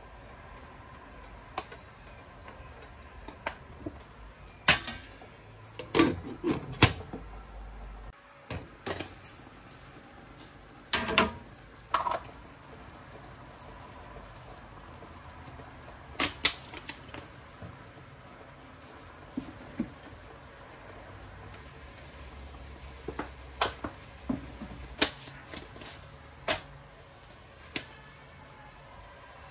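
Cooking utensils and a seasoning jar knocking and clinking against a metal cooking pot: scattered sharp clicks and taps, clustered about five to seven seconds in and again around eleven to twelve seconds, over a faint steady background.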